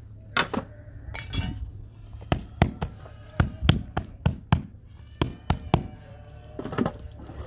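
A run of about fifteen sharp, irregular knocks, some in quick pairs and threes, like chopping or striking on a hard surface, over a low steady hum.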